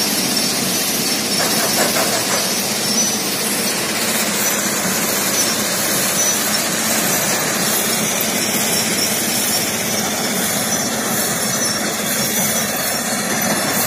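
Stone-crusher plant running: a steady mechanical noise from the crusher and its conveyor belts carrying gravel, with no breaks.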